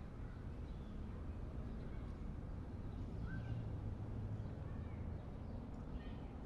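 Quiet room ambience: a steady low rumble, with a few faint bird chirps from outside, one about three seconds in and a couple more near the end.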